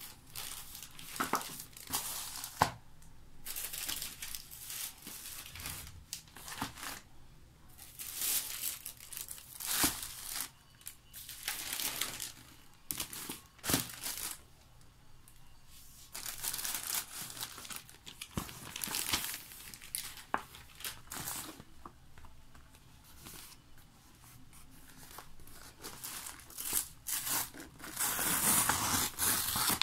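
Plastic mailer bags crinkling and rustling in intermittent bursts as they are handled and unwrapped. Near the end there is a longer, louder stretch of a courier envelope being torn open.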